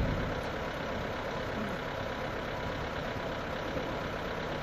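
Utility truck with an aerial lift boom, engine idling steadily.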